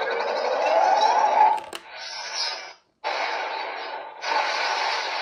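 Electronic toy sword, the Armor Hero Thunder Blade, playing sound effects through its small speaker. A hissing electric effect with a tone rising for about a second and a half breaks off. It comes back, stops briefly around three seconds in, and runs again.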